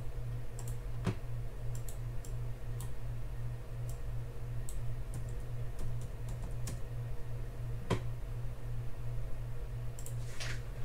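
Scattered light clicks and taps, with two sharper knocks about a second in and about eight seconds in, over a steady low hum.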